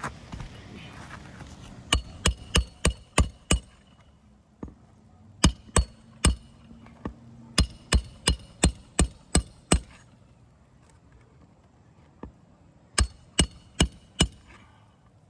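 Roof hatchet hammering nails into new three-tab asphalt shingles: quick runs of sharp strikes, about three a second, in four bursts with short pauses between.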